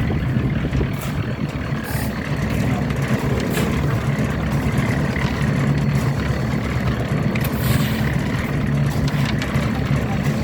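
An engine running steadily at a constant speed, with a few faint clicks over it.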